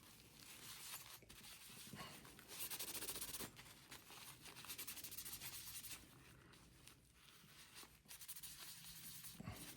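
Faint rubbing of a paper towel wiping old thermal compound off a CPU, in a few short spells of scrubbing.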